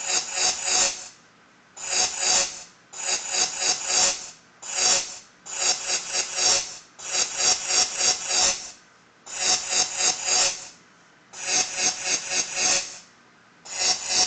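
Paint Lightning drawing app's electric drawing sound effect, a fast rasping crackle that plays only while a stroke is being drawn and stops when the finger lifts. It comes in about ten stretches of half a second to a second and a half, with short silent gaps between strokes.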